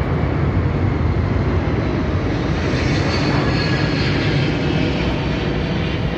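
Large four-engined military transport aircraft passing low overhead: loud, steady engine noise with a faint high whine about halfway through.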